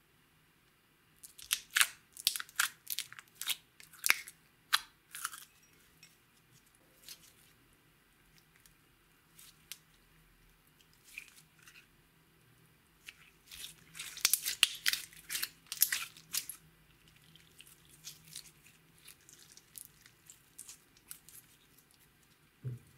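Clear glitter slime stretched and squeezed by hand, giving sticky crackling and popping clicks. The clicks come thick in two spells, one near the start and one past the middle, with scattered pops between.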